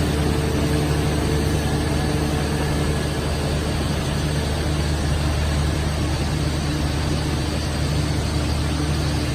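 Plastic sheet extrusion line running: a steady mechanical drone with a constant low hum and a broad hiss, unchanging throughout.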